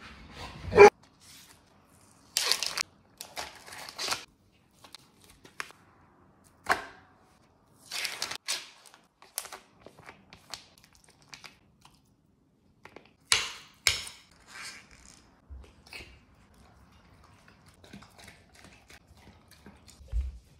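Scattered household handling noises: short rustles, scrapes and knocks, one after another with quiet gaps between them.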